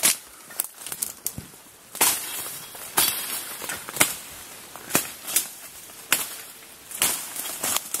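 A hand blade chopping through forest undergrowth and bamboo stems, about nine sharp strokes at roughly one a second, a few coming in quick pairs.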